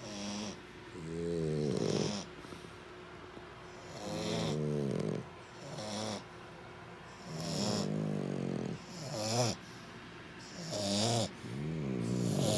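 French bulldog snoring, a pitched snore on every breath, about four breaths, each a longer snore followed by a shorter one.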